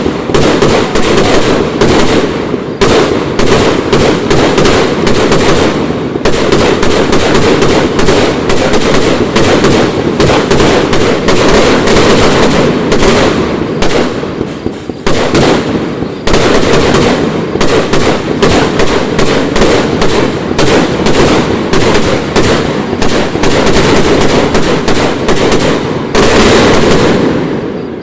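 Aerial fireworks going off in a dense, continuous barrage of rapid bangs and crackling. It eases briefly about halfway, then resumes and dies away at the end.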